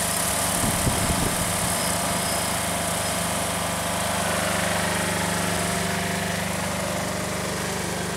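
A motor running steadily with a low hum under a hiss; the highest part of the hiss dies away about six seconds in.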